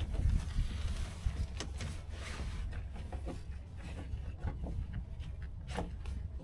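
Boat-tent fabric rustling and rubbing as it is pulled and tucked into place, with a few light knocks and clicks, and wind rumbling on the microphone.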